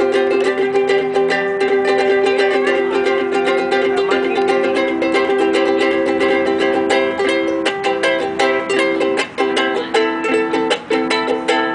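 Ukulele strummed in fast, steady chords. Near the end the strumming is broken by a few brief stops.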